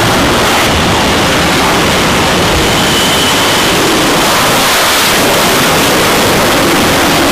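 F/A-18 Hornet jet engines running at high power on a carrier flight deck during catapult launches. The noise is loud and steady, with no breaks.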